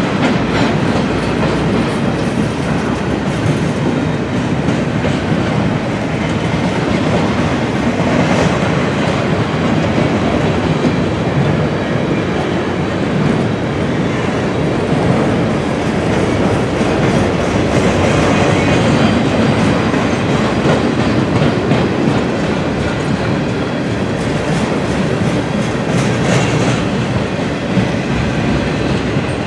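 Double-stack intermodal container cars of a freight train rolling past, their steel wheels running steadily on the rails.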